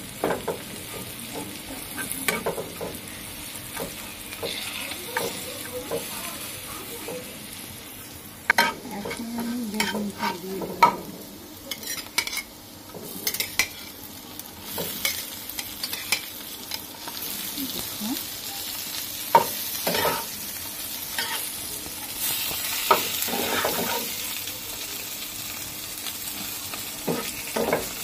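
Food frying in oil in a nonstick frying pan, sizzling, while a metal spatula stirs and scrapes against the pan again and again; the pan holds chillies and aromatics, and later brinjal slices with egg. The sizzle swells louder in places.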